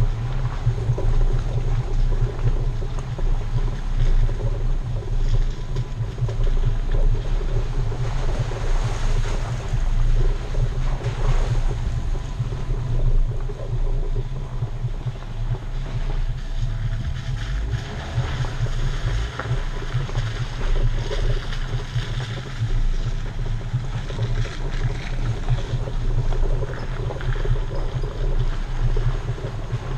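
Off-road vehicle driving slowly on a dirt trail: a steady low engine and drivetrain drone with the rumble and crackle of big knobby tyres rolling over dirt and stones, picked up by a camera mounted right beside the front tyre.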